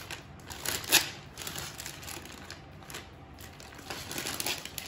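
Irregular crunching and crumpling clicks as something is crushed and worked by hand, with one sharper crack about a second in.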